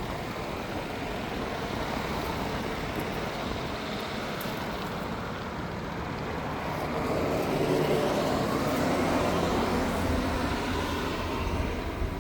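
Outdoor unit of a 2012 Airwell 2.5-ton heat pump running in cooling mode: a steady hum and whoosh of its compressor and condenser fan. A louder swell of noise comes and goes about seven to ten seconds in.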